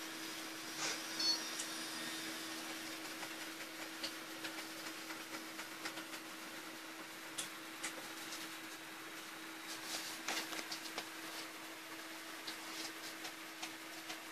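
Faint scattered clicks and light taps of small electronic parts and tools being handled on a workbench, over a steady low hum.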